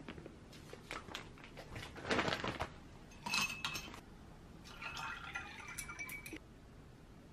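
Glassware and dishes knocked lightly onto a table, a ringing glass clink, then water poured into a stemmed glass for about a second and a half, stopping a little over six seconds in.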